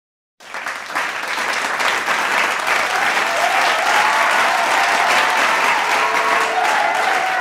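Applause from an audience, starting abruptly about half a second in and holding steady, with faint voices in the crowd.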